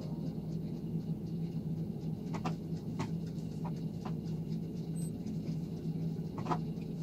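Steady low room hum with a few faint, light clicks scattered through it.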